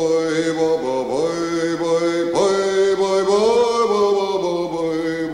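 A man's voice chanting a slow Jewish liturgical melody, with long held notes that slide up and down between pitches over a steady lower tone held underneath.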